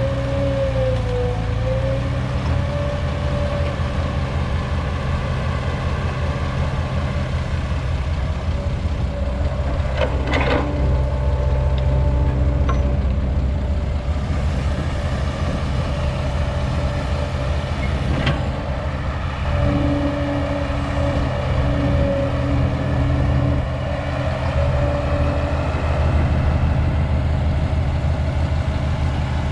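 Old Caterpillar excavator's diesel engine running steadily under load while digging and loading soil into a dump truck, with a wavering whine over the engine hum. Two sharp knocks, about ten seconds in and again near eighteen seconds.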